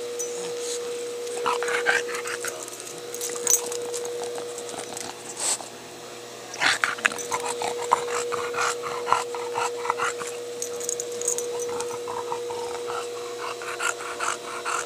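English bulldog sniffing and snuffling close up, in irregular bursts, busiest around the middle when it licks at a pipe cap.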